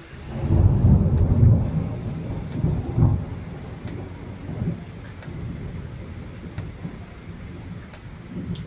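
A peal of thunder: a deep rumble that swells up just after the start and is loudest for about a second. A second crack comes about three seconds in, then the rumble fades away slowly.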